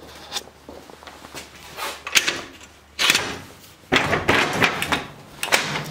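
An old garage door's metal latch rattled and worked by hand, with a few clicks at first, then loud knocks and scraping from about three seconds in as the door is opened.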